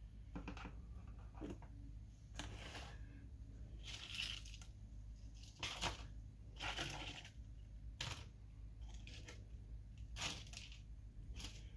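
Irregular rustling and light clicks from food and dishes being handled, over a low steady hum.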